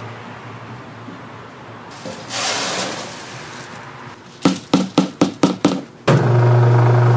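White grains poured with a short rushing hiss into the steel hopper of an electric grain mill, then six quick knocks as the plastic basket is knocked against the hopper. About six seconds in, the mill's motor switches on with a loud steady hum.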